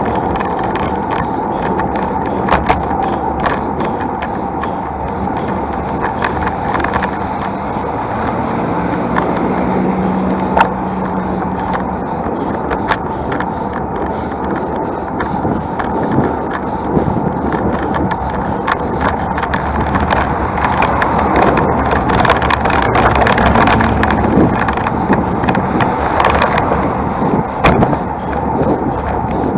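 Road bike climbing a paved road, heard from the bike: a steady rush of wind and road noise with frequent sharp clicks and rattles. A low motor-vehicle hum rises briefly about eight to eleven seconds in.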